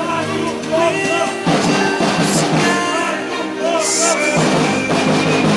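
Background music: a song track laid over the footage.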